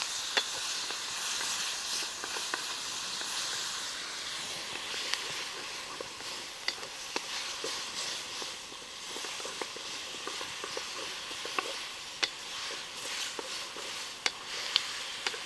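Sauce and vegetables sizzling and steaming in a wok over a wood fire as they are stirred with a wooden spatula, a steady hiss broken by a few sharp clicks. The sauce is reducing down toward a thick, caramel-like consistency.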